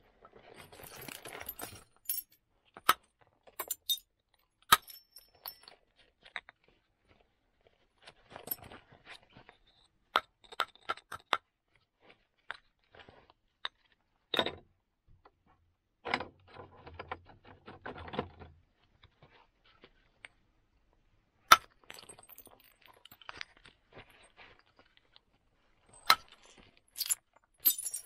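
Flint being knapped with a moose-antler tool: scattered sharp clicks and clinks of antler on flint and of flakes breaking off, a few much louder than the rest, with short stretches of scraping between them.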